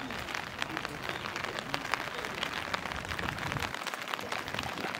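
Steady rain, with many separate drops landing close by as sharp ticks.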